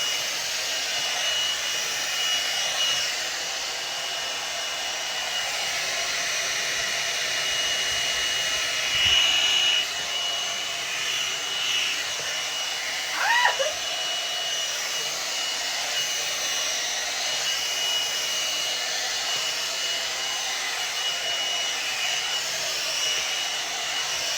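Hot-air hair dryer brush running steadily, an even blowing rush with a thin high whine, as it blows out hair; a short falling squeak cuts in about halfway through.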